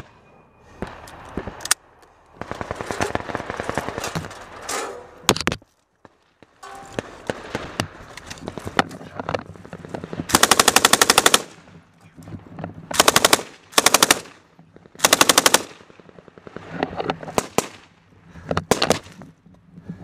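MK-48 7.62 mm belt-fed machine gun firing short bursts of automatic fire, the loudest being four bursts in quick succession about halfway through. Scattered single shots and cracks of gunfire come before and after.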